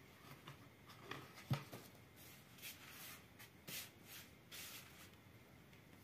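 Faint, soft rustling and brushing of hands scattering flour over a plastic tablecloth and working dough in a metal bowl, with a single dull knock about a second and a half in.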